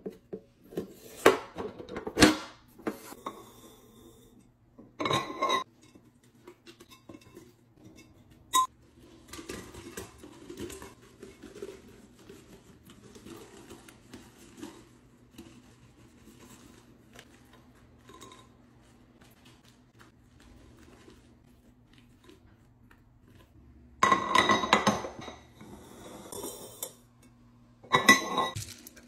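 Clinks, knocks and clatter of containers being handled and refilled, coming in bursts: hard laundry pods tumbling into a glass jar, and a glass lid clinking against its glass canister, with the loudest clatter near the end.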